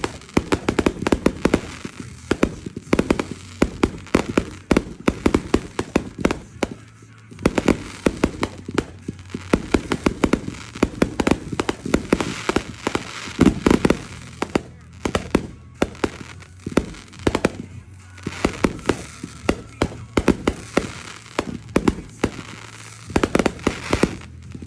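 Fireworks going off: a dense, continuous run of sharp pops and crackles, many per second, with louder bangs scattered among them.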